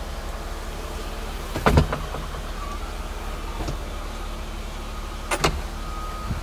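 Power soft top of a 2005 BMW 325ci convertible closing, its motor humming steadily, with a loud clunk a little under two seconds in and another about five and a half seconds in.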